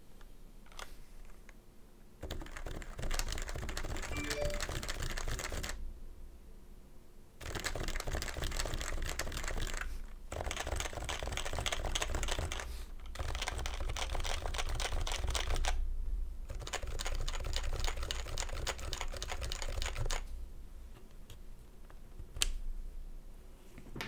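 Typing on a stock HHKB Pro 2 with 45 g Topre electrocapacitive switches and PBT keycaps: fast keystrokes in runs of a few seconds, broken by short pauses, then one lone keystroke near the end.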